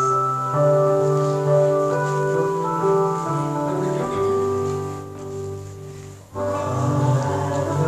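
Keyboard music in slow, sustained organ-like chords, the introduction to a hymn. It fades briefly about six seconds in, then comes back fuller.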